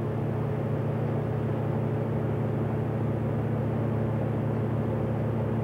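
Steady low drone of a ship's machinery: an even hum with deep steady tones and a hiss above them, unchanging throughout.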